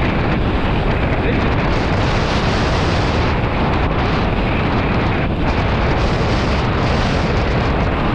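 Strong wind blasting a GoPro's microphone while kitesurfing at speed, a loud steady rumble, with water rushing under the board.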